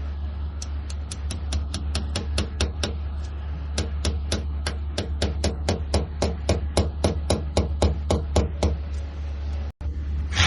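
Hammer tapping plastic wall anchors, each with a screw set halfway in, into a wall: rapid, even strikes about four a second, in two runs with a short pause between.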